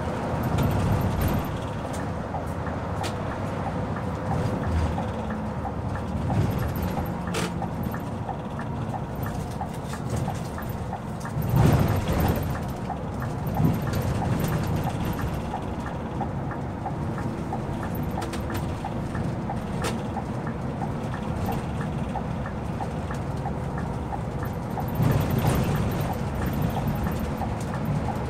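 Cabin noise of a Scania K 360 IB coach on the move: steady engine and road noise heard from inside, swelling louder twice, about halfway through and near the end.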